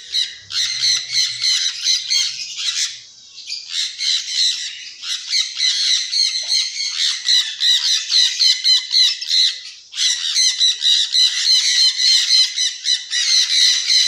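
A flock of sun conures screeching, many rapid shrill calls overlapping almost without pause, with brief lulls about three seconds in and again near ten seconds.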